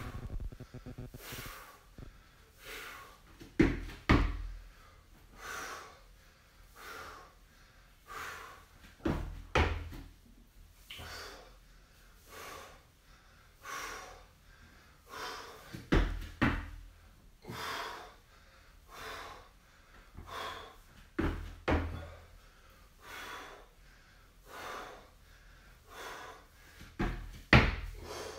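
A man breathing hard and rhythmically, about one breath a second, from the exertion of weighted squat reps. A few dull thumps stand out, the loudest about 4, 16 and 27 seconds in.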